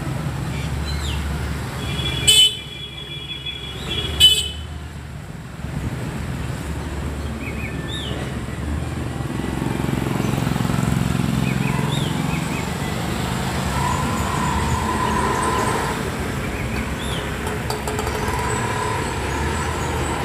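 Roadside traffic passing, with two short vehicle horn toots about two and four seconds in.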